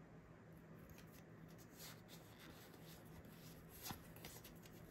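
Faint handling of Pokémon trading cards, slid one behind another as they are sorted through, with a few soft rustles and a small click nearly four seconds in.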